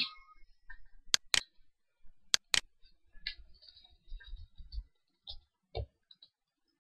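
Two quick double-clicks of a computer mouse, then a run of lighter, faster keyboard keystrokes.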